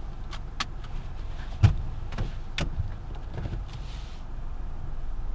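Car engine running at low speed, heard from inside the cabin as a steady low rumble, with several irregular sharp clicks and knocks on top, the loudest about a third of the way in, and a brief hiss near the end.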